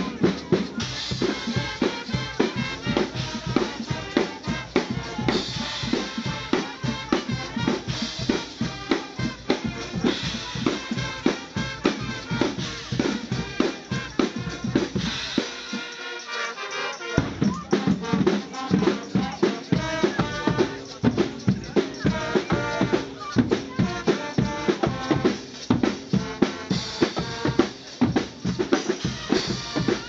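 Brass-and-drum street band playing: horns carry the tune over a driving beat of drum kit, silver multi-tom drums and repeated cymbal crashes. The low drums drop out for a moment about halfway through, then the full band comes back in.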